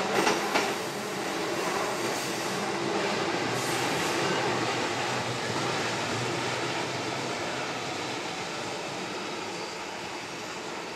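Sanyo Electric Railway 6000 series electric train passing and pulling away. Its wheels clack over the rail joints in the first half-second, then a steady rumble slowly fades as the train recedes.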